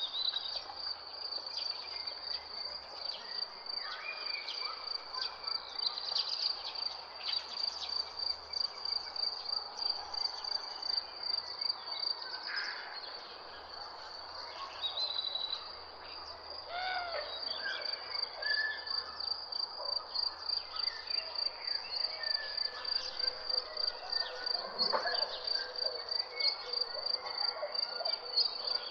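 Garden ambience: a steady, high, pulsing insect trill throughout, with scattered bird calls and chirps over it.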